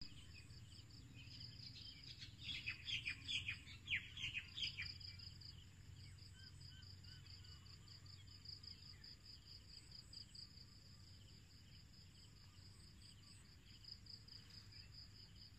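Faint outdoor ambience. A bird gives a flurry of quick, falling chirps from about two to five seconds in, over a steady, evenly pulsing high insect trill.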